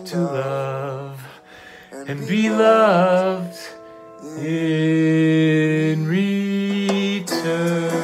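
A man singing wordless held notes in a jazz vocal style, sliding between pitches with vibrato, in a few long phrases with short breaks between them.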